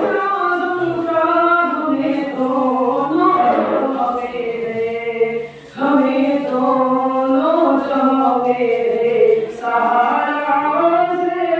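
A man singing an Islamic devotional chant (a naat) unaccompanied into a microphone, in long held, wavering notes. He pauses briefly for breath a little past halfway, then carries on.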